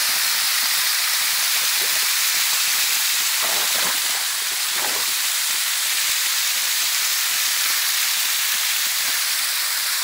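Waterfall pouring in thin streams down a layered rock face and splashing onto the rocks at its foot, heard from close by: a steady, even hiss of falling water.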